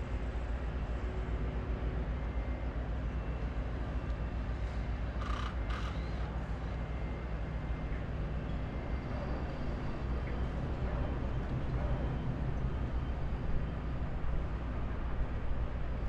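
Construction site ambience: heavy machinery engines running with a steady low rumble, and a brief sharp clatter about five seconds in.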